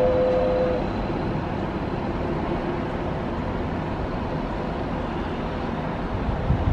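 Steady outdoor rush of distant traffic and wind from a high open balcony. A whistle's held chord of several tones cuts off about a second in, and a few low wind thumps hit the microphone near the end.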